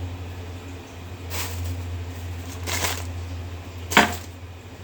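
Kitchen handling noises: two brief rustles and a sharp clack about four seconds in, over a steady low hum.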